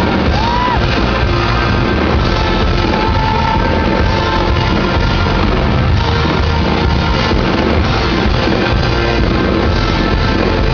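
Pop-rock band with acoustic guitar, bass guitar and drums playing a song live, loud, dense and steady, recorded through a phone's microphone from within the crowd.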